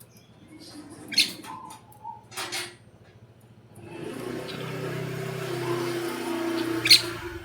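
Small birds giving a few short, sharp chirps, the loudest near the end. From about four seconds in, a steady noisy sound with a low hum comes in underneath.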